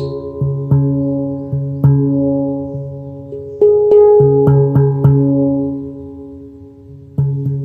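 Handpan played slowly by hand: single struck notes ring on and overlap. About halfway in comes a quicker run of several notes, which then rings out and fades for a couple of seconds before new strikes near the end.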